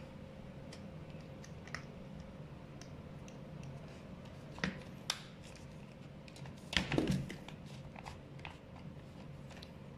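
Faint clicks and taps of small headlight parts, a circuit board and its housing, being handled and fitted together by hand over a low steady room hum, with the loudest cluster of clicks about seven seconds in.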